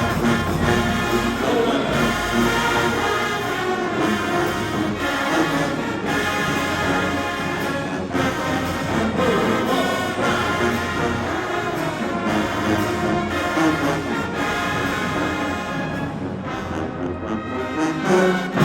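High school marching band playing a brass-heavy piece, with sustained chords from trombones and trumpets over the band. It swells to a loud accent near the end.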